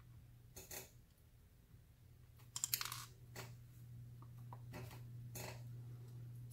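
Light metallic clicks and taps of tweezers and small brass key pins being dropped into a Euro cylinder lock's plug and checked for height, with a quick cluster of clicks about two and a half seconds in. A faint steady hum runs underneath.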